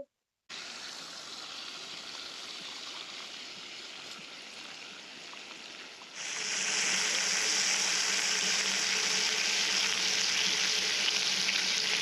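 Steady hissing that turns abruptly louder about six seconds in, into the sizzle of food frying in a pan on a camp stove.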